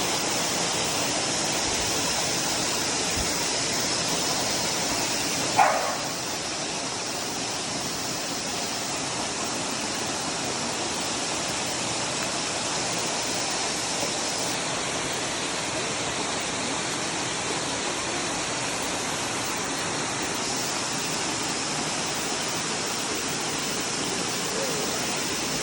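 Waterfall rushing steadily. About five and a half seconds in, one short cry sweeps down in pitch.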